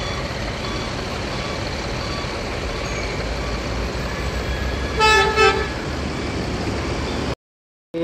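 Mercedes-Benz-chassised coach's diesel engine running steadily as the bus pulls away, with two short horn toots about five seconds in. The sound cuts out briefly near the end.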